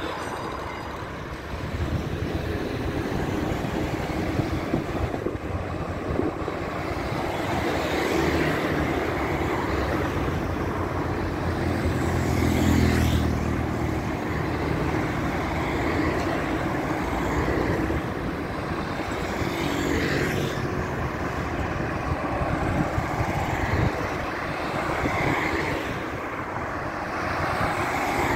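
Road traffic on a city avenue: cars passing one after another, the sound swelling and fading with each. One vehicle passes loudest about halfway through, with a low engine note.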